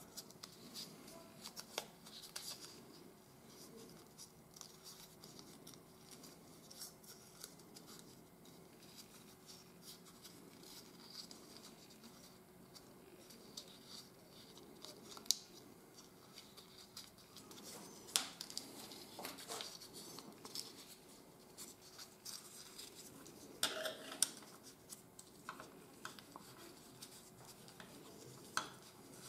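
Faint rustling and crinkling of a small strip of 80 g/m² office paper being folded and wrapped tight around a thin metal tool, with a few sharper clicks and taps in the second half.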